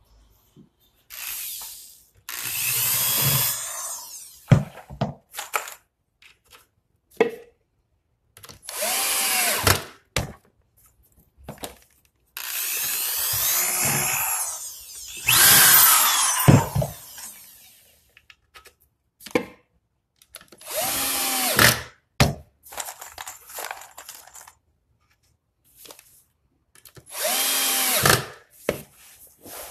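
Electric drills running in short bursts while a cabinet is assembled: a corded drill boring pilot holes and a Bosch cordless drill-driver driving screws into white MDF panels. There are about six bursts of one to two seconds and a longer one near the middle, each rising and falling in pitch.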